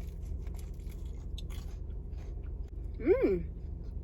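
A person chewing a bite of food close to the microphone, with faint crunches, then a short hummed "mmm" that rises and falls in pitch about three seconds in, the loudest sound here.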